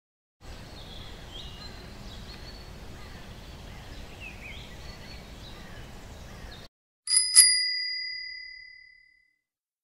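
Faint outdoor background with a few birds chirping, cut off abruptly, then a bicycle bell rung twice in quick succession. Its ring dies away over about two seconds.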